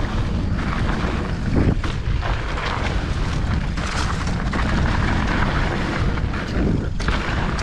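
Wind rushing over a mountain bike rider's camera microphone as he descends a dirt trail, with tyre rumble and knocks and rattles from the bike over bumps.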